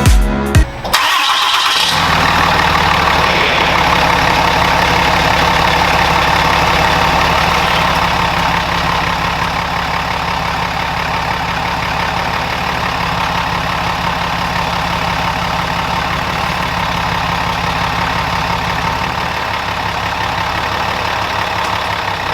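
Ram 2500 pickup engine started about a second in, then idling steadily.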